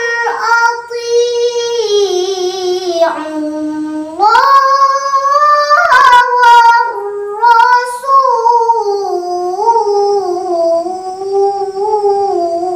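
A young girl's voice reciting the Qur'an in melodic tilawah style, with long held notes that waver in ornaments and rise and fall in pitch. The phrases are broken by short breaths.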